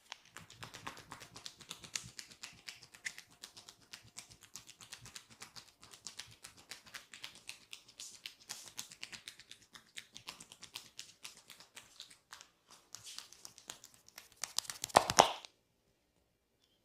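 A barber's hands rapidly tapping and working on a client's head in a head massage, many quick taps a second. A louder flurry near the end stops suddenly.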